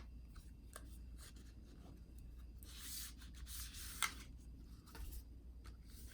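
Cardboard packaging being handled: light taps, then a couple of seconds of sliding and rubbing, with one sharp click about four seconds in.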